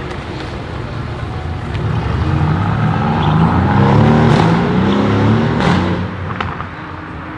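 Mercedes-AMG GT S's twin-turbo V8 with a custom straight-pipe exhaust accelerating hard: from about two seconds in the note rises in pitch and grows louder, peaking around four to five seconds in, then falls away. A few sharp exhaust cracks come near the peak and just after.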